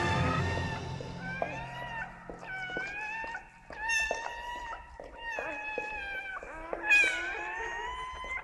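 Newborn Labrador Retriever puppies crying: a run of about half a dozen high, thin squeals, each drawn out for about a second and bending up and down in pitch, the loudest about seven seconds in.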